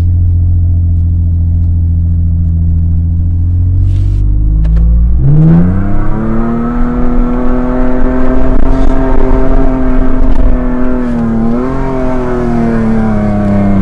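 Toyota Fortuner's V6 engine running steadily at low revs, then about five seconds in revving sharply up and holding high revs as the SUV pulls up a sand dune in low-range four-wheel drive. The revs waver and dip once near the end before falling away.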